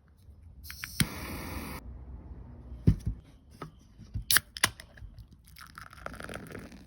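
Handling noises: a few sharp knocks and clicks between stretches of rustling and scraping.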